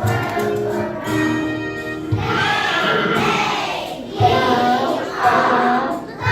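Children's choir singing with musical accompaniment on held notes. About two seconds in, this gives way to louder, ragged bursts of children's voices.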